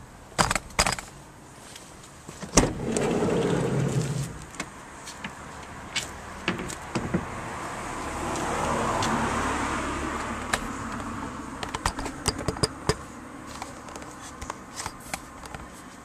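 A Volkswagen T5 van's sliding side door unlatched with a loud clunk about two and a half seconds in and rolled open along its runner. Wind noise swells on the microphone in the middle, and a run of small clicks and knocks follows near the end.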